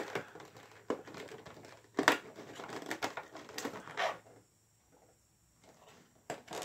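Clear plastic toy packaging being pried and flexed by hand, crackling and crinkling in irregular sharp clicks, with a quiet pause of about two seconds in the second half.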